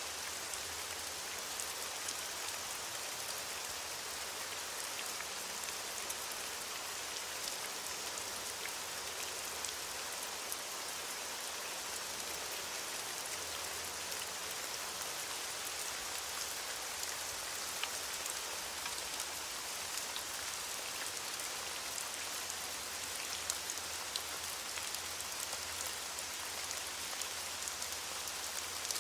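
Steady rain falling, an even hiss with many small drops pattering crisply on a surface.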